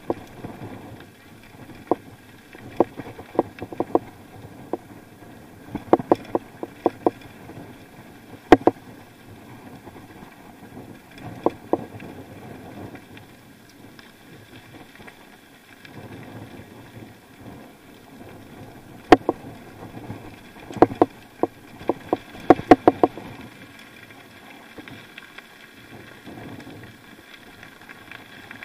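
Bicycle on a descent, a steady rush of wind and tyre noise broken by several spells of sharp rattling clicks as the bike jolts over bumps.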